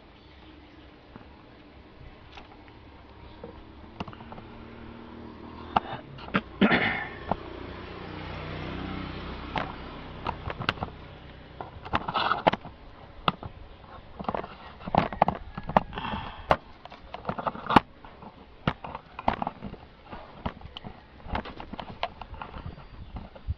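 Irregular sharp clicks and knocks from handling the stereo's plastic front panel and casing, over a soft rustling hiss that swells about five seconds in.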